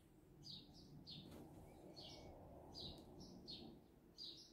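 Faint bird chirping: short high chirps repeated about twice a second, often in pairs.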